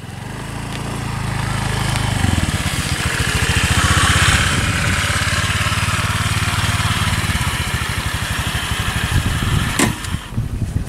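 Motorcycle engine running as the bike rides up, growing louder over the first few seconds and then holding steady. The engine dies away near the end, and there is a single sharp click just before the end.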